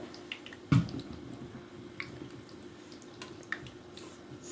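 Bhatura deep-frying in hot oil in a kadai: the oil sizzles and crackles with scattered small pops, and a single utensil thump comes a little under a second in.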